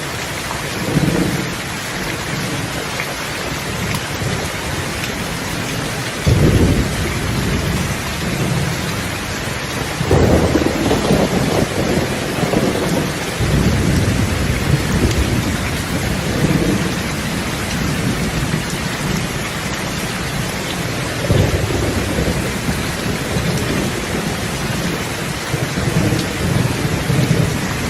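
Steady heavy rain with rolls of thunder: a loud rumble about six seconds in, a longer, stronger roll starting about ten seconds in, and another about twenty-one seconds in.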